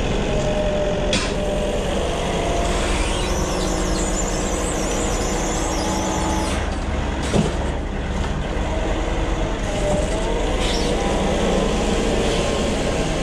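Forklift running while it takes a pallet off a trailer bed, drives away with it and comes back, its drive whine gliding up and down in pitch as it moves. A single short knock sounds about seven seconds in.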